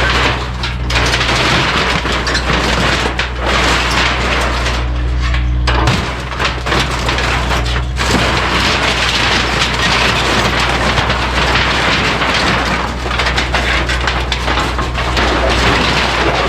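Kubota U55-4 mini excavator's diesel engine running steadily while its bucket loads demolition debris into a dumpster, with continuous crashing and clattering of the junk as it is scooped and dropped.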